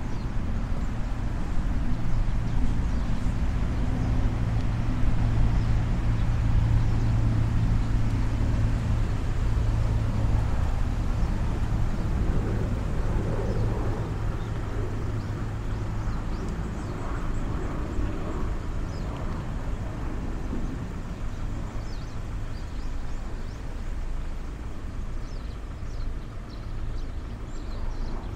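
Steady low hum of a vehicle engine running nearby, fading out about halfway through, over outdoor background noise.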